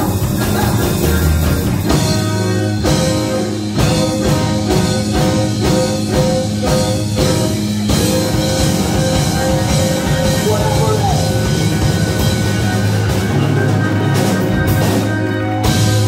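Live big band playing: horns over drum kit, with evenly repeated punchy hits for the first half, then long held chords and a loud accent near the end.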